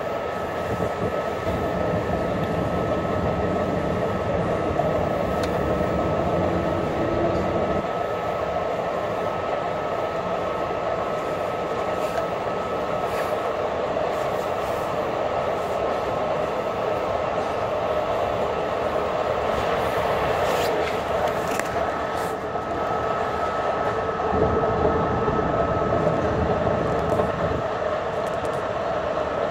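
Long Island Rail Road M3 electric multiple-unit train running along the track, heard from inside the rear car: a steady rumble of wheels and running gear with a thin, steady whine above it.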